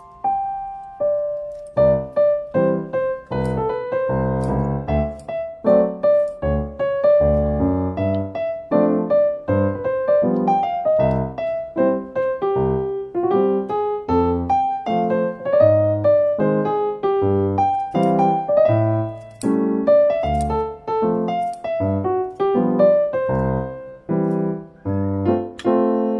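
Background music: a piano tune with a steady rhythm and a regular bass line.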